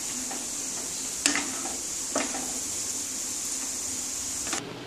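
Dough balls shallow-frying in hot oil in a non-stick kadai, sizzling steadily, with a wooden spatula knocking against the pan twice, about a second and two seconds in. The sizzle stops abruptly near the end.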